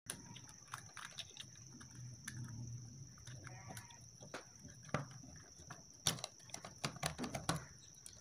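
Small clicks and scrapes of a screwdriver tip on the metal terminal screws of a plastic bayonet lamp holder as the wires are screwed in, coming thicker near the end, over a faint steady high whine.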